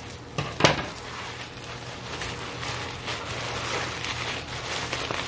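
Plastic bubble-wrap packaging rustling and crinkling as it is handled and pulled open. Two sharp clicks come about half a second in.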